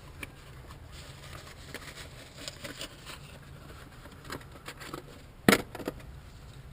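Tools and small parts being handled at a workbench: scattered light clicks and rattles, with one loud sharp clank about five and a half seconds in, over a steady low hum.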